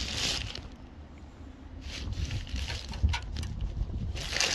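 Plastic tarpaulin rustling as a hand pushes it aside, then a few short crackles and scrapes of handling around rusted sheet metal, over a low rumble.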